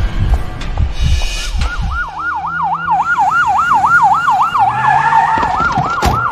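Police siren wailing in a fast up-and-down warble, about three to four sweeps a second, starting about a second and a half in. Before it comes a low, rhythmic thumping like a heartbeat.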